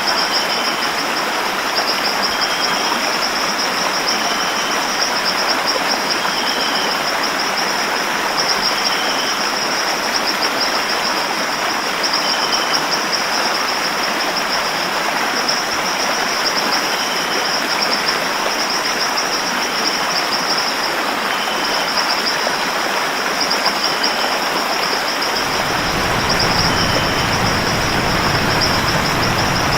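A waterfall recording laid over the footage: a steady rush of falling water, with a high pulsing buzz above it and short bird chirps every second or two. About 25 seconds in, a deeper rumble joins the rush.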